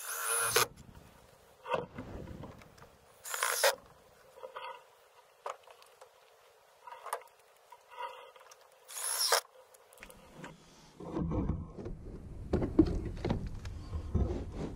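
Handling noises: a few short rustles of a jacket brushing against the microphone, then, from about eleven seconds in, knocks and scraping as a car battery in a plastic crate is handled on a pickup tailgate.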